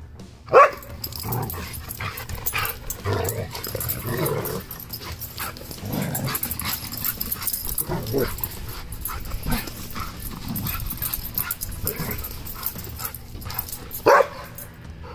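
Two dogs, a red-and-white Siberian husky and a fluffy light-coloured dog, playing and vocalizing at each other, with a sharp bark about half a second in and another near the end.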